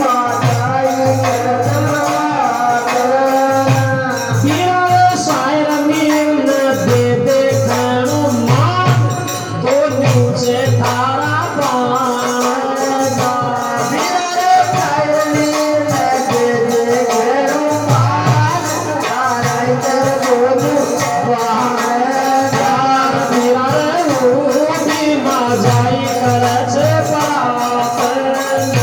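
Folk music of a sung katha, with no words: a wavering melody over low pulsing notes and constant rattling hand percussion.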